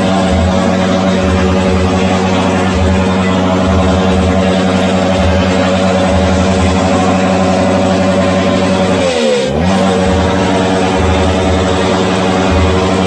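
Motorcycle engine held at steady high revs, with a quick drop in revs and a climb back about nine seconds in.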